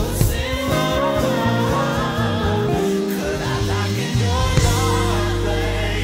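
Studio band playing an R&B/neo-soul groove: electric bass, drum kit, Rhodes electric piano and electric guitar, with a melody line that bends up and down over the top. Around the middle the drums thin out and the bass slides down and back up in pitch.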